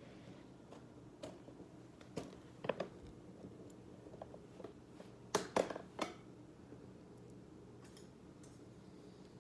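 Clear plastic tarantula enclosure and its vented plastic lid being handled: scattered light clicks and knocks of plastic, with the loudest cluster of sharp clicks about five to six seconds in.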